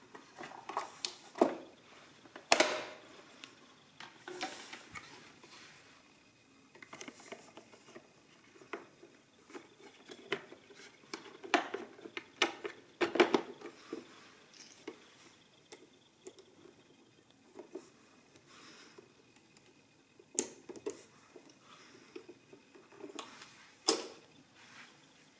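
Casing of an Everest Plurima Manuale adding machine being fitted back on by hand: irregular clicks, knocks and scrapes as the housing parts are seated and clipped in place, the sharpest knock about two and a half seconds in.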